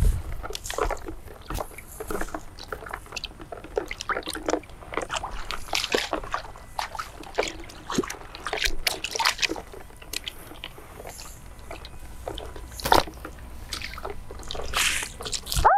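Bare feet squelching and sloshing through wet mud and grass, in irregular steps.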